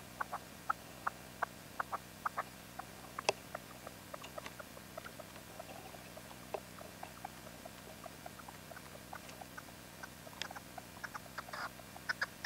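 Red-legged partridge giving short, soft clicking call notes, a few a second at first and sparser in the middle, then louder and closer together near the end.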